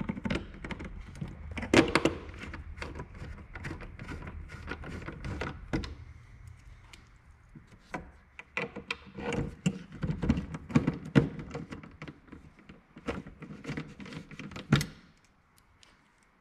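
Irregular clicks, scrapes and small knocks of hand work as a screwdriver drives screws to fasten a custom cover around an LED tail light on a bus body. There are louder knocks about two seconds in and near the end.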